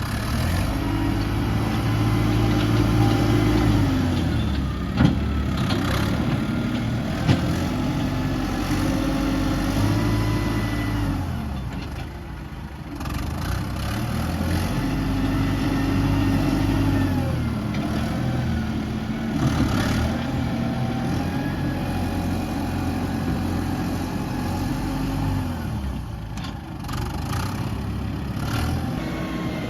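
Heavy diesel engine of earthmoving machinery working under load, revving up and settling back in repeated cycles every several seconds. Two sharp metallic clanks come about five and seven seconds in.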